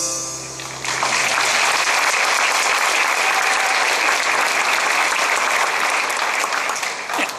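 The last held note of the recital music dies away, and about a second in an audience breaks into steady applause.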